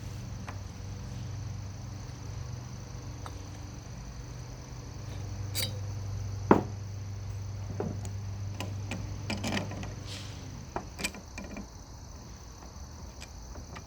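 Scattered light clicks and taps of metal engine parts as a cylinder is worked down over a piston and its rings, with one sharper knock about six and a half seconds in. A steady low hum runs underneath.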